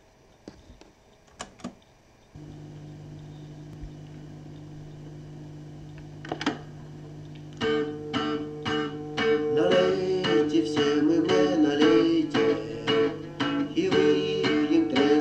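A few clicks from the buttons of a Panasonic cassette boombox, then a steady low hum as the tape starts, and about seven or eight seconds in, strummed acoustic guitar music begins playing from the cassette through the boombox's speakers, louder from about nine seconds in.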